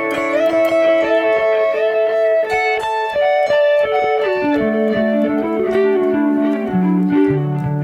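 Electric guitar, a Telecaster, played through a Strymon BigSky MX reverb pedal. Single notes step downward in pitch and hang on, overlapping one another in a long wash of reverb.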